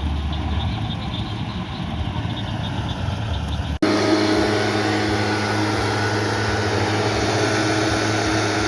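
Vehicle engine running steadily. About four seconds in, a sudden cut brings a different steady engine hum with a low, even drone.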